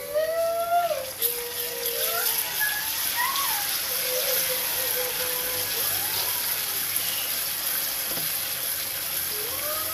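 A ladle stirring spice paste into a pot of thin broth with onion and lemongrass: liquid sloshing and the ladle scraping the pot, over a steady hiss. Faint wavering voice-like tones run in the background.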